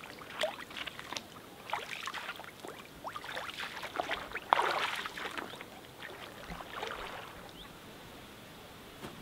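Footsteps wading through shallow lake water: a run of irregular splashes and sloshes, the biggest about four and a half seconds in, dying away near the end as the wader stands still.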